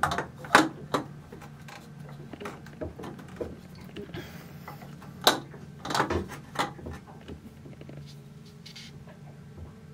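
Knocks and clicks as a new spin-on diesel fine fuel filter is worked into its awkward mounting on the engine: three sharp ones in the first second, then another cluster about five to six and a half seconds in. A steady low hum runs underneath.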